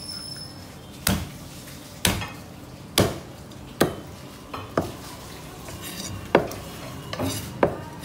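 Large knife chopping through Asian sea bass on a wooden chopping block: about eight sharp chops, roughly one a second, some with a brief metallic ring.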